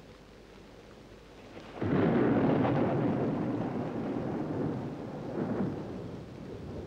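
Thunder: a sudden clap about two seconds in, rumbling on and slowly fading over several seconds, after a faint steady hiss.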